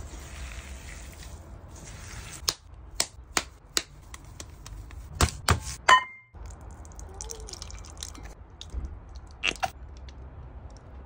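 Hands kneading raw ground beef in a stainless steel bowl make a wet squishing hiss. A run of sharp knocks and clicks follows. Just before six seconds a stainless steel bowl is set down on a wooden cutting board and rings briefly.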